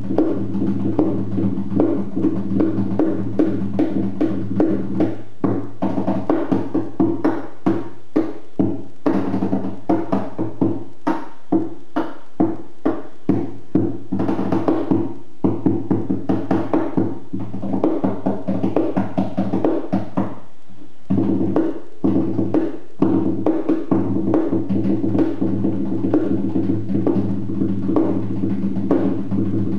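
Cheap classical acoustic guitar played percussively. Fast, busy knocks and taps on the wooden body run over low strings left ringing, with a short break in the tapping about two-thirds of the way through. The sound is a phone recording.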